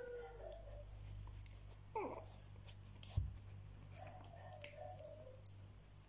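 Shiba Inu puppies whimpering faintly: a short squeak that falls in pitch about two seconds in, and a softer wavering whine about four seconds in, over a low steady hum.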